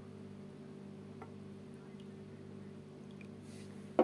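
Low steady hum with a few faint ticks, then one sharp knock near the end as a drinking glass of milk is set down.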